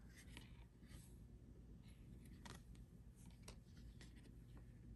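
Near silence, with faint scattered clicks and soft rubbing of trading cards being slid and shuffled in the hands.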